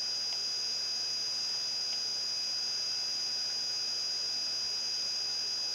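Steady background hiss with a thin, constant high-pitched electrical whine: the noise floor of a desk recording setup, with no other sound.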